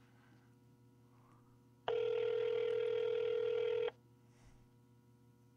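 Telephone ringback tone heard down the calling line: one steady ring lasting about two seconds, about two seconds in, the sign that the dialled number is ringing and has not yet been answered. A faint line hum underlies it.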